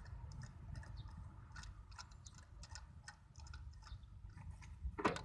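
Faint, irregular clicking of a ratchet wrench on a 16 mm spark plug socket as a spark plug is loosened.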